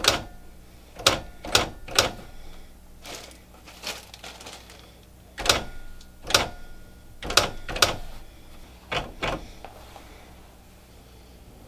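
Electric typewriter being typed on slowly, about a dozen separate sharp key strikes at irregular spacing, hunt-and-peck style, over the first nine seconds or so.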